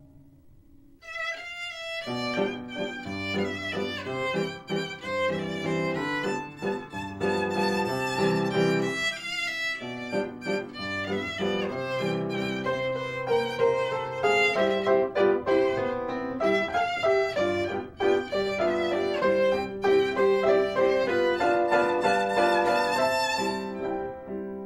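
Violin music: a bowed melody of sustained notes, coming in about a second in and fading away near the end.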